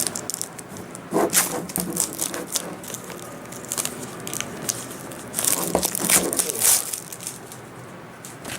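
Blu-ray collector's edition packaging being opened by hand: crinkling and tearing of the wrapping with scattered handling knocks, busiest a little over halfway through.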